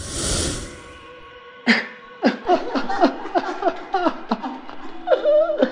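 A whooshing sound effect, then a voice giving a quick string of short cries, each falling in pitch, about four a second, over a low eerie music drone.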